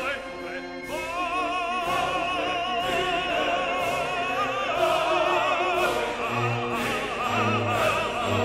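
Background music: operatic singing with a wide vibrato on long held notes over orchestral accompaniment.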